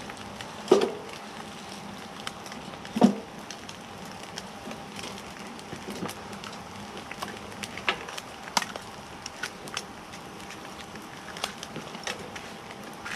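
Wood stove fire crackling, with scattered light clicks and pops. Two louder sharp knocks stand out near the start, about two seconds apart.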